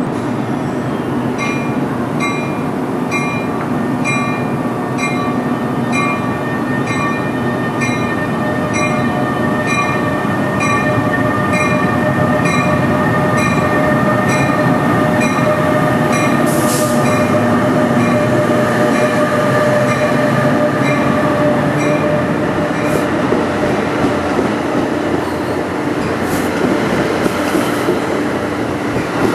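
NJ Transit ALP-46 electric locomotive pulling a train into a station: steady rumble of wheels with the whine of the electric drive, and its bell ringing a little under twice a second for most of the time, stopping about three-quarters of the way through. A few sharp wheel clicks come near the end as coaches roll past.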